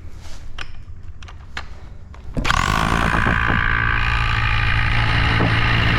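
A few light knocks, then a corded rotary hammer drill starts abruptly about two seconds in and runs steadily with a motor whine, drilling an anchor hole into concrete.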